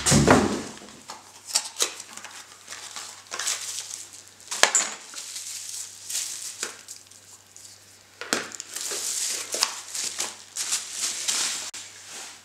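Plastic packaging crinkling and rustling as parts are unwrapped by hand, with scattered sharp clicks and taps. A dull thump comes right at the start.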